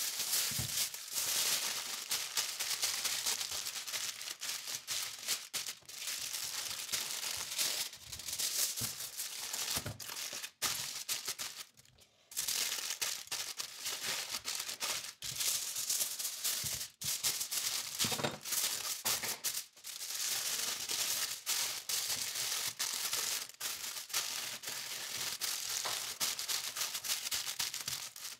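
Aluminium foil crinkling and crackling as it is folded into a packet and pressed flat by hand, with a brief pause near the middle.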